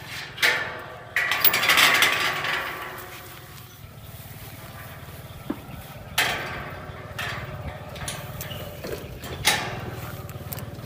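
Metal bar gate rattling and clanking as its latch is worked and it is opened, with a loud scraping clatter about a second in and sharp knocks near six and nine and a half seconds, over a steady low engine hum.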